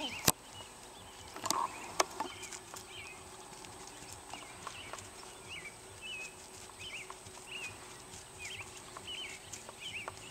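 Horse walking on grass. Two sharp knocks, one right at the start and one about two seconds in, and a faint high squeak repeating about twice a second.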